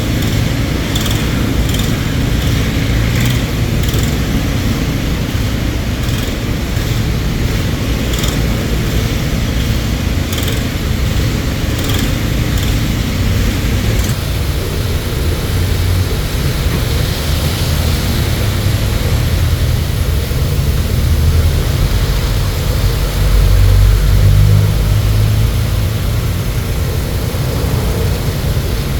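Road traffic: vehicle engines and tyre noise making a steady low rumble, with light scattered clicks in the first half.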